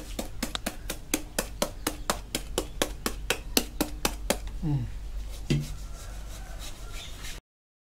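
Kitchen knife blade chopping rapidly into a whole green papaya held in the hand, about four to five quick strikes a second, the Thai way of cutting it for som tam shreds. The chopping stops about four seconds in, and the sound cuts off abruptly near the end.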